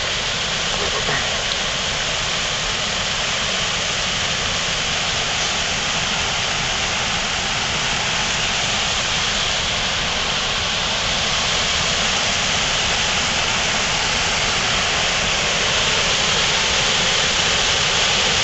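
Waterfall pouring over a concrete dam spillway: a steady, even rush of falling water that grows a little louder toward the end.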